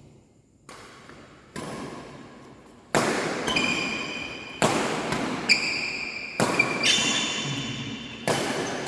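Badminton rally: rackets striking the shuttlecock about eight times at irregular intervals of roughly a second, each hit sharp and echoing in a large hall, the hits growing louder after about three seconds. High squeaks sound between some of the hits.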